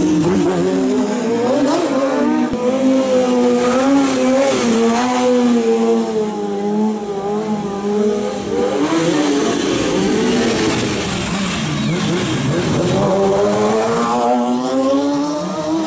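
Motorcycle engines revving hard, the pitch rising and falling again and again with the throttle, with a sport bike passing close near the end.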